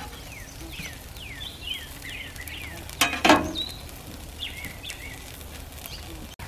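A small bird chirps over and over in short notes that slide downward, over the faint sizzle of meatloaf patties on a flat-top gas griddle. About three seconds in there is a sharp clack, the loudest sound.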